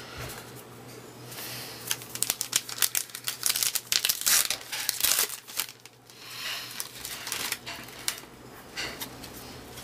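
Crinkling and tearing of a baseball-card pack's wrapper as it is opened, mixed with the rustle and light clicks of trading cards being handled and set down on a table, in irregular bursts.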